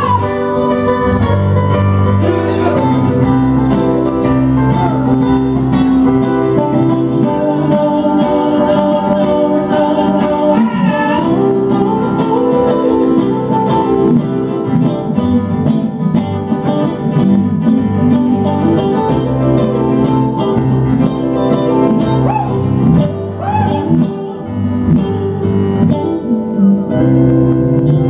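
Live band music: an electric guitar and a keyboard playing together, with a man singing at times.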